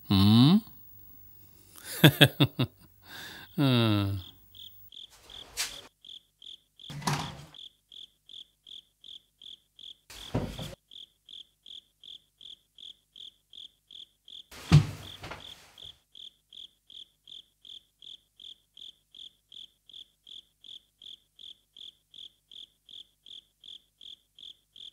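Crickets chirping steadily, a single high chirp about twice a second, starting about five seconds in. Over it, a few short sounds of a man's voice in the first few seconds, then several brief bumps and rustles as a blanket is spread and a man lies down on a cot.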